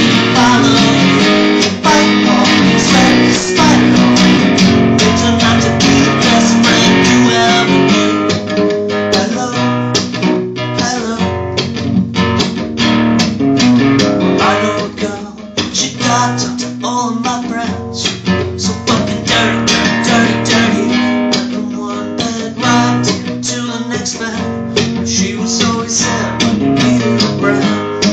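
Gibson acoustic guitar strummed in a steady rhythm of full chords, getting a little softer about a third of the way through.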